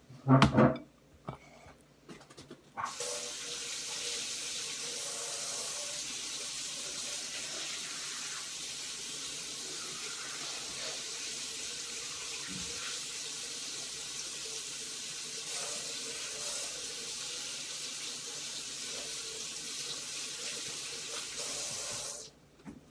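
Water tap running into a sink: turned on about three seconds in, a steady rush of water, shut off shortly before the end.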